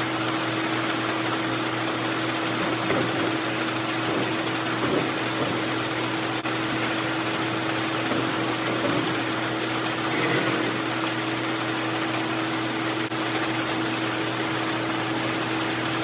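Grain auger running steadily as a wagon of shelled corn unloads through it into the bin: an even rushing hiss of moving corn over a constant machine drone.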